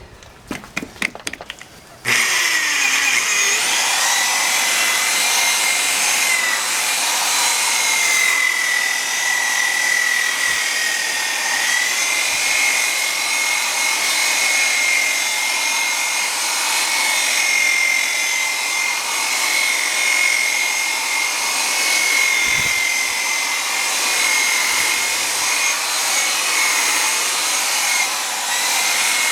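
Milwaukee electric buffer starting about two seconds in after a few clicks, then running steadily with a high motor whine while it polishes a plastic headlight lens with compound. The whine dips slightly in pitch around ten seconds in.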